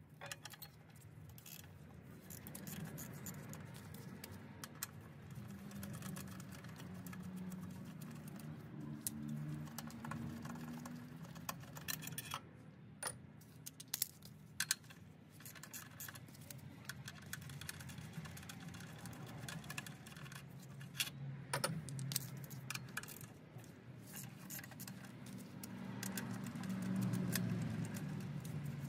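Socket wrench clinking and clicking on the alternator's 15 mm mounting bolts as they are worked loose, in irregular sharp metallic clicks, with a few louder clanks about halfway through, over a low background hum.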